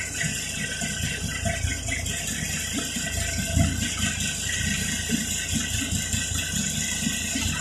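City bus interior, with the diesel engine running and the body panels, windows and fittings rattling in irregular low knocks.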